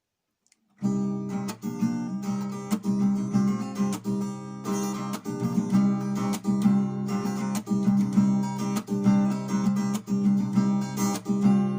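Acoustic guitar strummed in a steady rhythm, starting about a second in.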